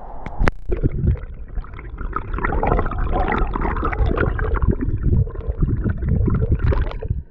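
River water heard with the camera held underwater: muffled gurgling with many irregular knocks and bumps, after a sharp click about half a second in. It cuts off abruptly at the end.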